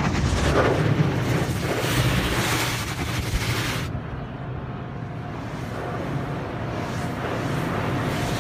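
Automatic car wash heard from inside the car: cloth brushes slapping and sweeping over the windshield and body with water spraying, over a steady low hum. The loud hissing wash cuts down about four seconds in, leaving quieter spray and splashing.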